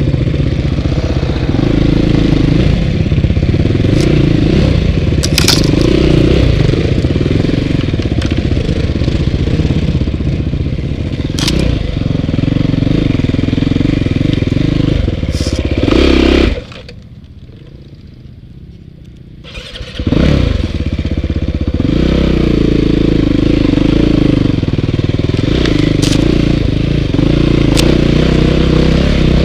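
Dirt bike engine running hard and revving up and down as it is ridden along tight single track, with a few sharp clicks and knocks. About two-thirds of the way through, the engine sound drops away for about three seconds, then comes back abruptly.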